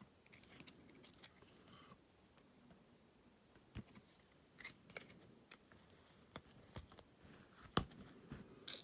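Near silence broken by faint, scattered clicks and taps of a MacBook Pro's keys and trackpad being used, with one sharper click near the end.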